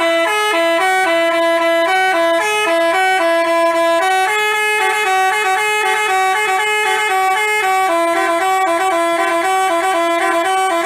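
Bus telolet horn of the basuri type playing a multi-note tune: two notes sound together and step quickly from pitch to pitch, loud and continuous.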